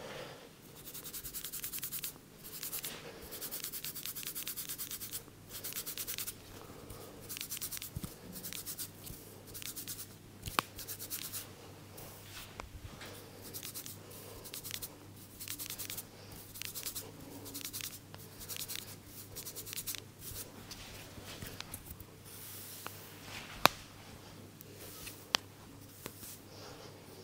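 Head massage: rapid rubbing and scratching over hair and scalp, coming in strokes of one to two seconds, stronger in the first half. There is a sharp click about ten seconds in and two more near the end.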